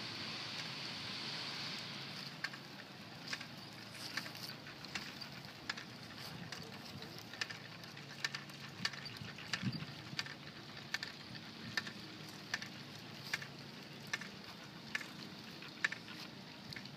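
Footsteps on dry grass and leaves, one crisp step a little more than once a second, starting about two seconds in. Before that, steady wind noise on the microphone.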